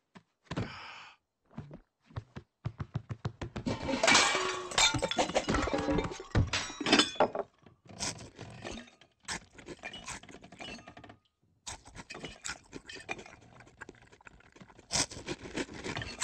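Cartoon slapstick sound effects of a character scrambling up kitchen shelves for cookies: scattered knocks, then a dense stretch of clattering, clinking and crashing dishes and wood from about three and a half seconds in, followed by more scattered bumps and scrapes.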